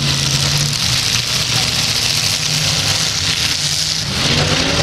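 V8 demolition derby cars' engines running hard on a dirt track, a loud steady mix of exhaust noise from several cars, with one engine revving up in pitch near the end.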